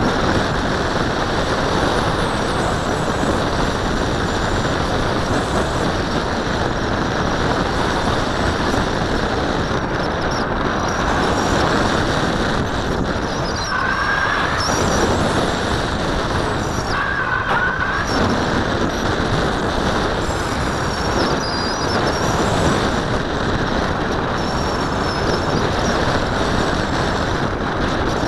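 Steady rush of airflow over an onboard camera riding on a flying RC glider, with a brief higher whistle twice about halfway through.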